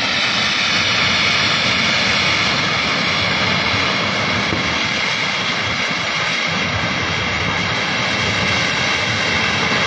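Steady, loud roar of a river in flood rushing past, with no separate crashes standing out.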